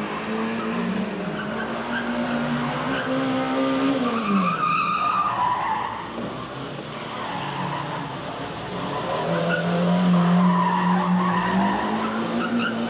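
Small hatchback's engine revving hard as the car is thrown around cones, with the pitch falling about four seconds in and climbing again later. Tires squeal and skid through the turns.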